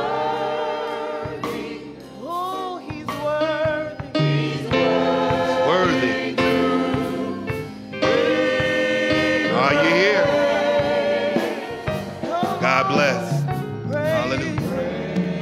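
Gospel music: voices singing with wavering, sliding pitches over sustained instrumental accompaniment, with occasional percussive hits.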